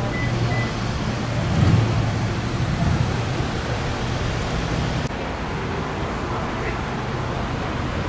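Road traffic noise from vehicles on a busy roadway, with a steady low engine hum that cuts off abruptly about five seconds in.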